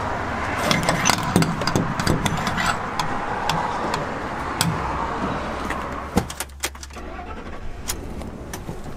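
Gasoline running from a pump nozzle into a pickup's tank as a steady hiss, with scattered clicks of the nozzle being handled. About six seconds in there is a sharp click and jingle of keys at the ignition, and the sound drops quieter.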